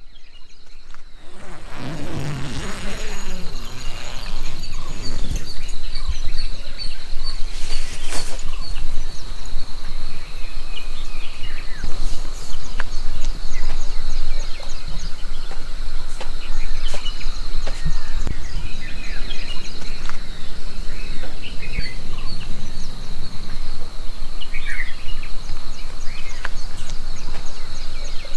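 Outdoor dawn ambience: birds chirping and calling over a steady high-pitched insect drone, fading in from silence over the first couple of seconds.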